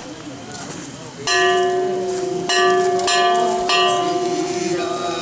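Small hand-held metal gong struck four times, the first about a second in and the other three in quicker succession, each strike leaving a clear pitched ring that carries on for a few seconds.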